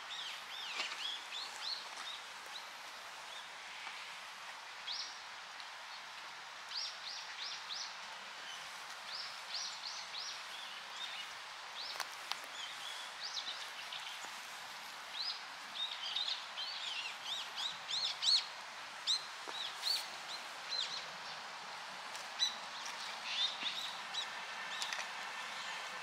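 Small birds chirping in quick runs of short high notes, over the steady rush of a flowing stream.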